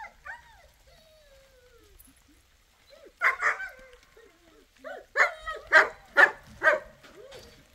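A dog barking: two barks about three seconds in, then a quick run of about five more from about five seconds in.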